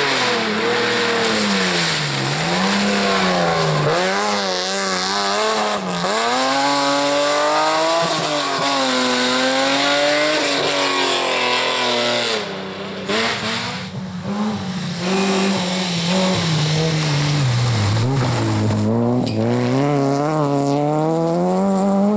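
Rally car engines at high revs on a gravel stage, the pitch repeatedly climbing and dropping through gear changes and lifts, over the noise of tyres on loose gravel. First comes a BMW 3 Series (E30); after a brief dip about 13 seconds in, other rally cars follow.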